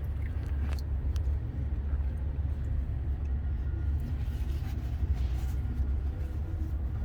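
Steady low rumble, with a few faint clicks and knocks.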